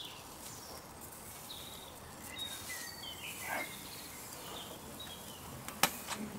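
Garden birds chirping in short calls over a steady background hiss, with a couple of sharp clicks near the end.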